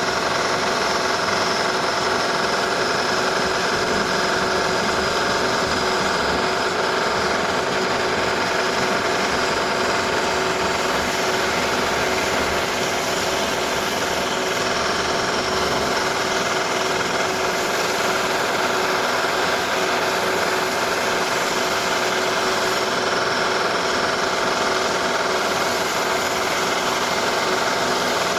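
Electric drill running continuously during home renovation work, a steady motor drone that holds one pitch without a break.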